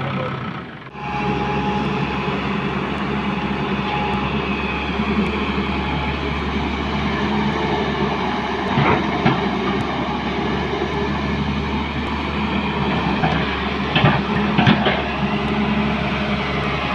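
Diesel engines of a tracked excavator and a backhoe loader running steadily at work, with sharp metallic clanks about halfway through and a few more near the end.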